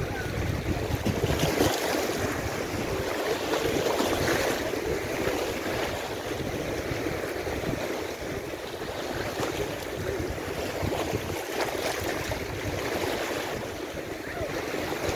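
Small sea waves washing and breaking over shoreline rocks, a steady rush of surf that swells a little louder in the first few seconds.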